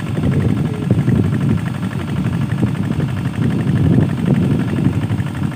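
Strong wind buffeting the microphone: a loud, uneven low rumble that swells and eases.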